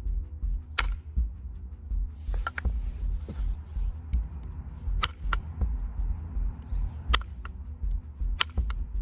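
Stone point being pressure-flaked with a copper flaker: about seven sharp, irregularly spaced clicks as flakes snap off the edge.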